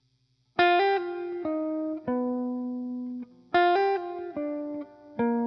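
Guitar music: a short phrase of plucked notes that steps down in pitch, starting about half a second in and played again about three seconds later.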